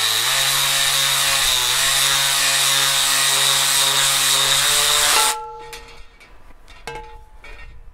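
Cordless detail sander running at steady speed with its pad against a cast iron skillet, sanding off spots of rust. It switches off about five seconds in, followed by a few light knocks.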